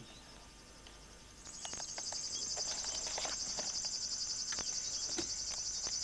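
River warbler singing: a steady, rapidly pulsed high-pitched buzz that grows louder about one and a half seconds in. Other birds chirp briefly now and then.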